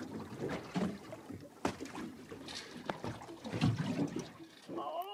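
Small waves lapping and slapping irregularly against the hull of a drifting boat.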